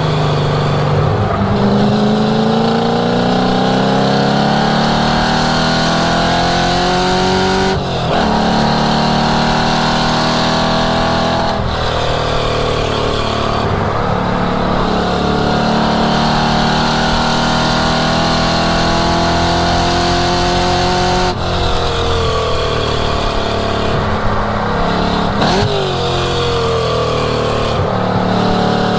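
A 1967 Mustang's cammed 5.0-litre V8 running hard through a lap. The exhaust note climbs steadily in pitch through each gear and drops sharply at gear changes about 8, 12 and 21 seconds in. There is a quick rev blip about 25 seconds in.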